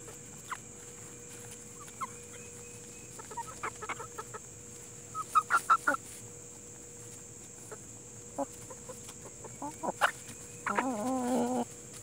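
Plymouth Rock and Hamburg hens clucking while foraging. Scattered soft clucks build to a quick run of louder clucks about halfway, then a drawn-out, wavering call near the end.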